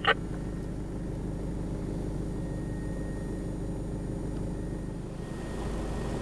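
Four-wheel-drive off-road vehicle driving slowly on a snowy track, heard from inside the cab as a steady low engine and road rumble. A single brief, sharp, loud sound comes at the very start.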